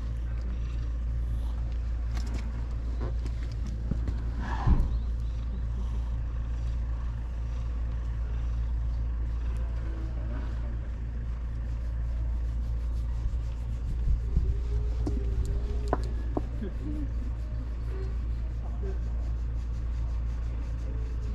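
Tabby cat purring steadily as it is stroked, a low continuous rumble close to the microphone, with a short louder sound about five seconds in.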